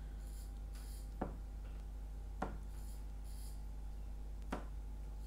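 Acrylic-paint-dipped rubber balloon dabbed onto a stretched canvas: three soft taps spread over a few seconds, with brief faint rustling hisses between them as it is pressed and lifted.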